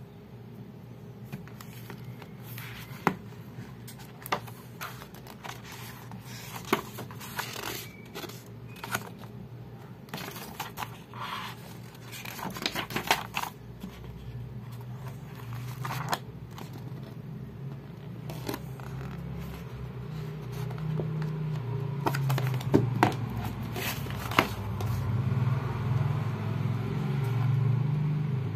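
Paperback book being handled: pages rustling and turning, with paper scraping and scattered sharp taps and clicks. A low steady hum grows louder over the second half.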